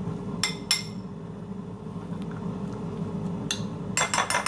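Metal spoon clinking against a glass bowl while stirring coleslaw: two light taps about half a second in, then a quick run of clinks near the end. A steady low hum runs underneath.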